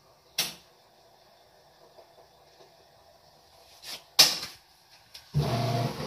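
Toshiba AW-J800A-PH fully automatic top-loading washing machine mid-cycle: a quiet background hum with a short knock near the start, a loud clunk about four seconds in, then a louder churning sound from the machine for the last second.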